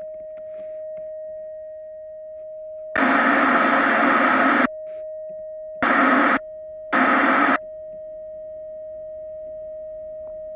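A steady single-pitch test tone of the kind that goes with TV colour bars, cut three times by loud bursts of TV static hiss: a long burst about three seconds in lasting nearly two seconds, then two short bursts around six and seven seconds.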